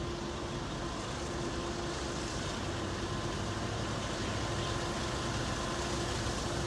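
Diesel freight locomotive approaching slowly, a steady low engine rumble with a faint steady hum, growing slightly louder.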